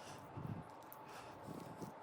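A few faint, soft low knocks over a faint steady hum.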